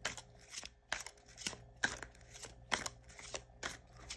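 Tarot cards being handled and drawn from the deck: a run of crisp paper clicks and snaps, about three a second at an irregular pace.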